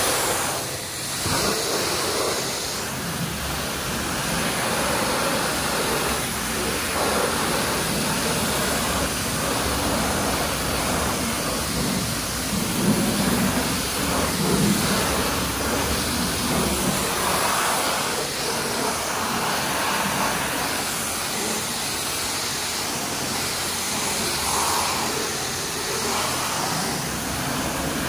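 Self-serve car-wash high-pressure wand spraying water onto a car's bodywork: a continuous hiss that swells and eases as the spray moves over the panels.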